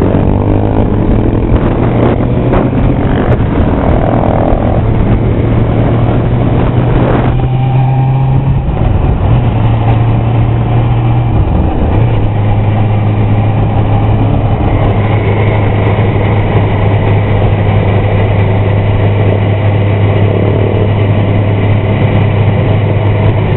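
Sport motorcycle engine running steadily under way, heard from the rider's seat, its low note stepping down in pitch twice, about a third and a half of the way through.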